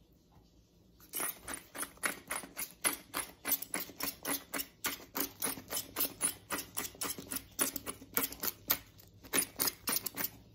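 Hand-held twist-top spice grinder being turned: a fast, regular run of dry grinding clicks, about four or five a second, starting about a second in.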